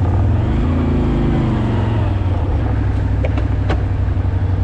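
ATV engine running while being ridden across rough ground, its pitch rising and falling once about a second in. Two sharp clicks or knocks come near the end.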